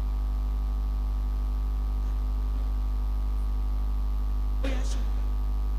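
Steady electrical mains hum with a buzz of evenly spaced overtones. A brief faint voice is heard near the end.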